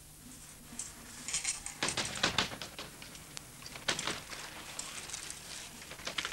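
BMX bikes going past close by, tyres crunching on the track surface and frames and chains rattling, with loud crackly bursts about two seconds in and again about four seconds in.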